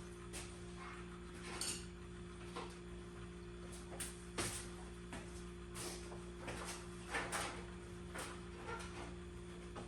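Scattered light knocks, clicks and scrapes of parts and tools being handled, over a steady low electrical hum.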